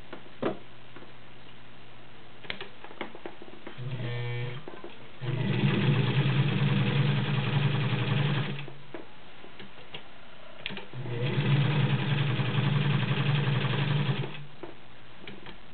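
Elgin-badged Class 15 straight-stitch sewing machine with a 1.5 amp motor, sewing through three layers of medium-weight garment leather. After a few clicks and a brief start, it runs steadily twice at speed for about three seconds each.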